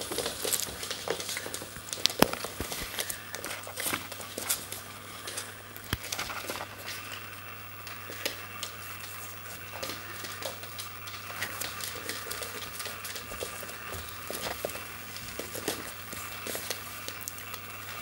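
Dachshund puppies' claws and paws pattering and clicking on a hard wooden floor as they scamper about: irregular light ticks, with a few louder clicks.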